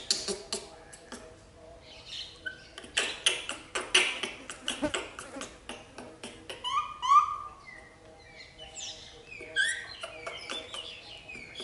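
Repeated sharp clicks and taps of a small hard plastic toy as a baby monkey chews and handles it, thickest about three to four seconds in. Short high chirps, some rising and some falling, come in over the second half.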